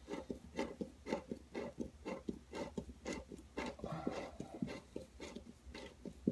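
Hand screwdriver driving a snap toggle wall anchor into drywall in short twisting strokes: an even run of short scraping creaks, about four a second.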